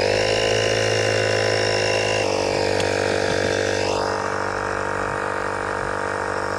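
Kobalt mini air compressor switching on and running steadily, pumping air into a PVC rooftop shower tank. Its tone shifts slightly about two seconds in.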